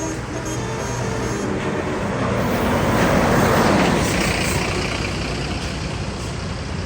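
A large road vehicle, most likely a bus, passes close by: its engine and tyre noise swells to its loudest about three to four seconds in, then fades. The last notes of a basuri musical horn die away in the first second.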